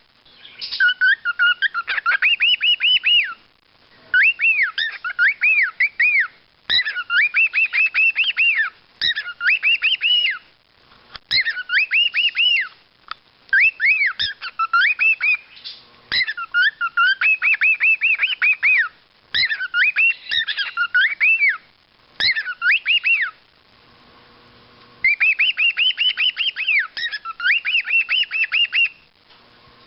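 Cockatiels calling: bursts of quick, repeated rising-and-falling chirping whistles lasting a few seconds each, with short pauses between them.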